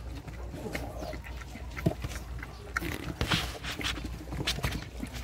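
Puppies about four weeks old, German shepherd × Belgian shepherd crosses, lapping milk from a bowl: quick, irregular wet licking clicks.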